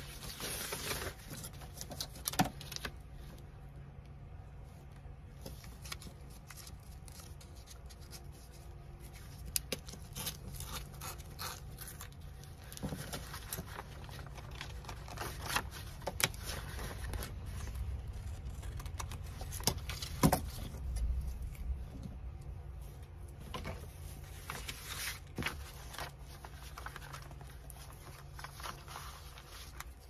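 Sheets of craft paper being handled and arranged by hand: rustling and sliding, with scattered light taps and clicks.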